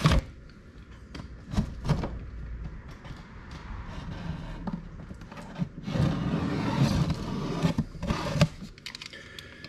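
Utility knife slitting the packing tape on a cardboard box, with scattered short scratches and taps and a longer rasping cut about six seconds in.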